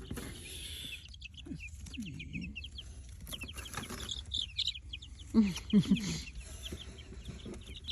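A flock of young chickens peeping and clucking: many short, high chirps throughout, with a couple of louder, lower calls about five and a half seconds in.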